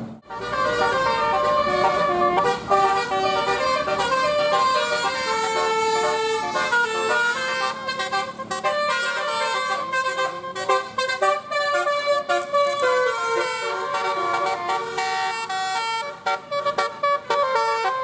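Telolet basuri musical bus horn playing a long tune in steady stepped notes, several sounding together.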